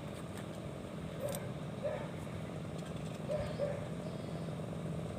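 A dog barking four short times, about a second apart, over a steady low hum.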